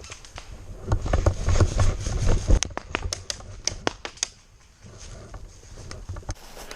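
Hurried footsteps and gear rustling, then a run of irregular sharp clicks and snaps.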